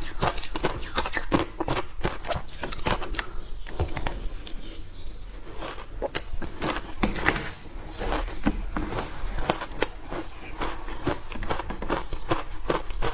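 Ice being bitten and crunched between teeth: a dense run of sharp cracking crunches, sparser for a couple of seconds about four seconds in.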